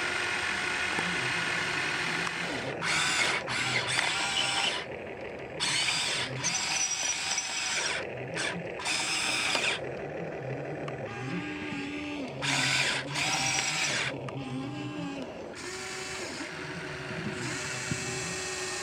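Small electric motors and gearboxes of a radio-controlled toy excavator whirring as it digs soil. The whine shifts in pitch, and it comes in louder runs of a second or two that start and stop as the arm and bucket move.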